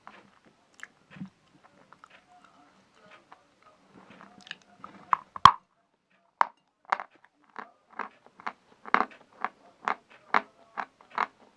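A piece of chalk bitten off with one sharp crack about five and a half seconds in, then crunched between the teeth about twice a second. Before the bite there are only faint small clicks.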